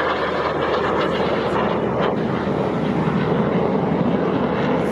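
Saab 35 Draken jet fighter flying past, its afterburning Volvo RM6 turbojet making a loud, steady roar.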